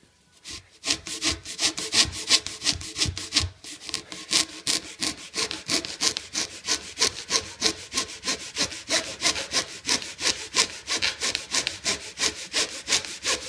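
A hand-held blade sawing back and forth through a clamped Rawlings Major League baseball, cutting the wound yarn beneath the leather cover. The strokes run at a steady three to four a second, starting about half a second in with a brief pause a few seconds later.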